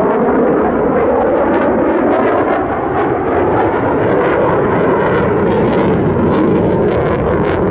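Loud, steady roar of an F-35A's single Pratt & Whitney F135 jet engine in afterburner as the fighter flies a display pass, with a ragged crackle riding on it.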